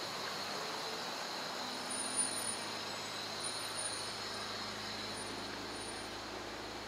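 Steady city street ambience: a constant hum of distant traffic, with one brief louder bump about two seconds in.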